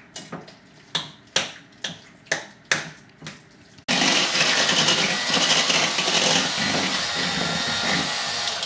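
A utensil knocking against a glass mixing bowl two or three times a second, then, about four seconds in, a corded electric hand mixer switches on abruptly and runs steadily, beating yogurt into mashed potatoes, until it stops at the very end.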